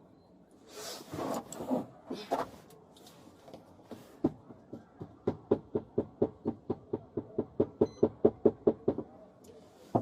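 Rapid knocking from inside a police car's back seat, about five even knocks a second for several seconds: a detained person banging to be let out. A few rustling shuffles come before it.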